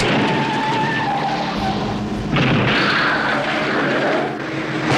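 Vehicle tires squealing and skidding over engine and road noise as a big truck shoves a red pickup out of its way. The squeal comes in two long stretches, the second starting a little over two seconds in with a higher, louder squeal.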